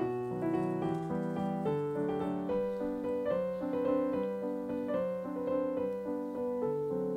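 Background piano music, a gentle melody over steady chords.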